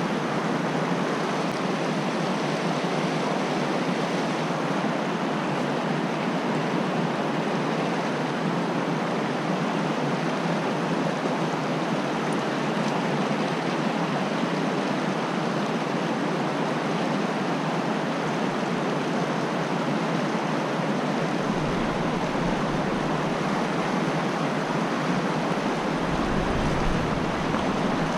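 Fast-flowing creek water rushing over rocks, a steady even rush. Two brief low rumbles come in the second half.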